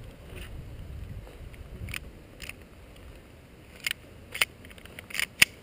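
Airsoft guns firing single shots: about half a dozen sharp, short snaps at irregular intervals from about two seconds in, the loudest near the end.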